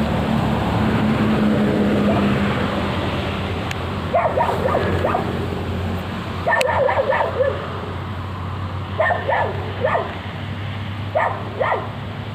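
A dog barking in four short bouts of a few quick barks each, over a steady low hum.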